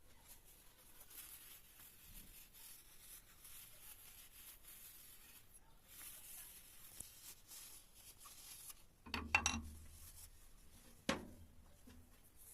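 Faint scraping and rubbing, then a quick cluster of knocks about nine seconds in and a single sharp knock with a brief ring about two seconds later.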